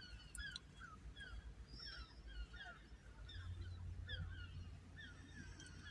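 Birds calling faintly, many short falling calls in quick succession, over a low rumble that grows stronger about three seconds in.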